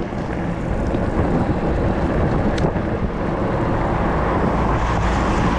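Steady rush of wind buffeting the action camera's microphone as a stunt scooter rolls fast down a wet asphalt road, mixed with the rumble and hiss of its small wheels on the rough wet surface.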